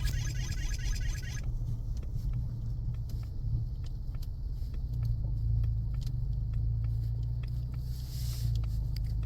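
Low, steady in-cabin road and drivetrain rumble of a 2024 Ford Mustang EcoBoost driving slowly on a snow-covered road, with scattered light ticks. A high, rapidly repeating tinkling sound stops about a second and a half in.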